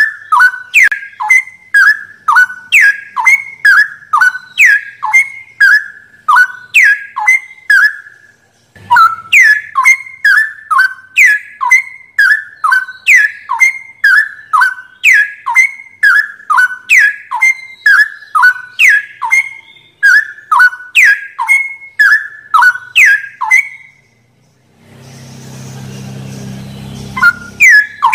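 Straw-headed bulbul singing: a fast string of loud whistled notes, each sliding sharply down in pitch, about two a second. The song breaks off briefly about eight seconds in, and near the end it gives way to a few seconds of hiss with a low hum before starting again.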